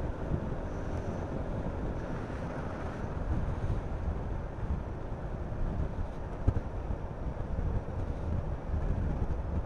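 Honda Forza 350 scooter riding at a steady cruise: the single-cylinder engine drones under wind rushing over the microphone. A single sharp knock comes about six and a half seconds in.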